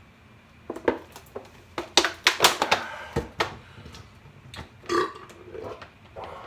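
A man burping repeatedly from swallowed soda gas: a quick run of short, sharp burps between about one and three and a half seconds in, then one longer burp near five seconds.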